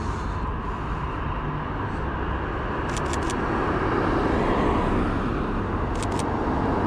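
Street traffic noise that swells a little midway. Over it, two quick bursts of mirrorless camera shutter clicks come about three and six seconds in.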